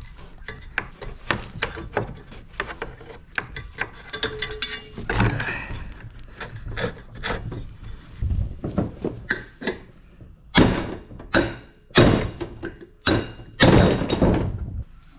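Hand tools clicking and tapping on an air conditioner's sheet-metal housing while set screws are worked loose, then several loud thunks and knocks in the last few seconds as parts are pulled free.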